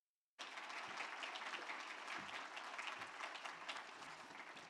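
Audience applauding, starting abruptly about half a second in and slowly tapering off.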